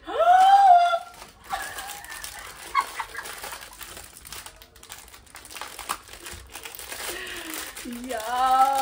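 Packaging crinkling and rustling as a package is unwrapped, with scattered small clicks. A woman's short, high vocal exclamation opens it, and a hummed, held tone comes near the end.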